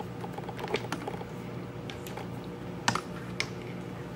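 Detonating cord being handled and knotted against a wooden tabletop: scattered small clicks and taps of cord and fingers, with a sharper tap a little under three seconds in and another shortly after, over a steady low room hum.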